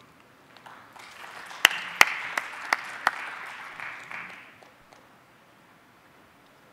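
Audience applauding, with a few single claps close to the microphone standing out. The applause dies away about four and a half seconds in.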